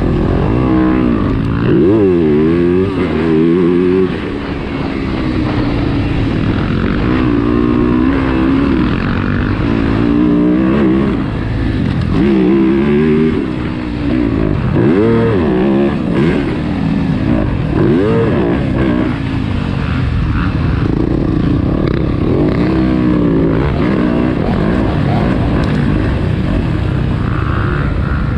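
2023 Yamaha YZ250F's 250 cc four-stroke single-cylinder engine being ridden hard on a motocross track, the revs climbing and dropping back over and over as the throttle is worked on and off.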